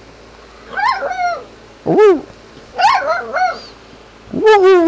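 Puppy howling in short yowling calls, four in a row with pauses between, each rising and falling in pitch, the last one wavering up and down.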